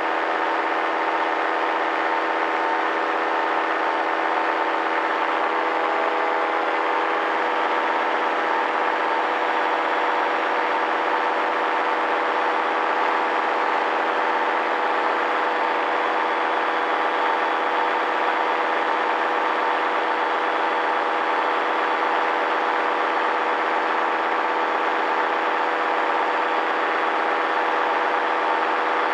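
Paramotor engine and propeller running steadily at constant throttle in cruising flight, an even drone made of several steady tones.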